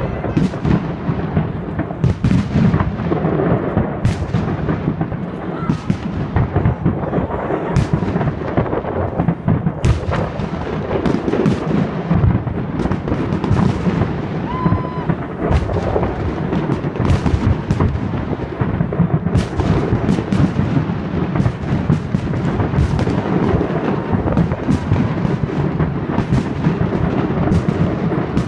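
Fireworks display: aerial shells exploding in a continuous barrage, many sharp bangs overlapping over a steady low rumble.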